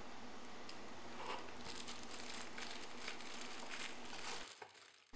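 Plastic packaging crinkling faintly as it is handled, in scattered short rustles; the sound drops out abruptly near the end.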